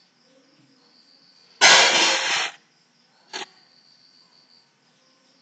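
Crickets chirping faintly and steadily in the background. About a second and a half in, a loud rush of noise lasts about a second, and a short, weaker burst of noise follows near 3.3 s.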